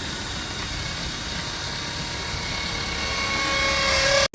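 A steady rushing engine noise that slowly grows louder toward the end, then cuts off abruptly.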